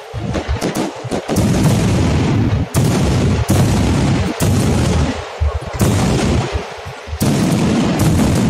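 Large fireworks display: a rapid, continuous barrage of aerial shells bursting, with overlapping low booms and sharp cracks that ease briefly a little past the middle.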